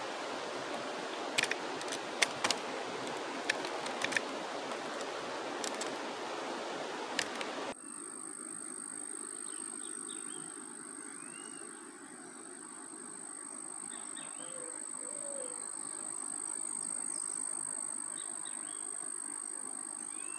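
Outdoor riverside ambience. For the first eight seconds a steady hiss runs under a handful of sharp clicks. The sound then cuts abruptly to a quieter background with a steady high-pitched insect drone and a few short bird chirps.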